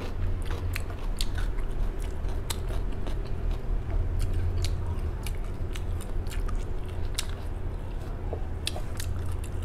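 A person chewing a mouthful of crisp lettuce salad close to the microphone, with irregular sharp crunches, over a steady low hum.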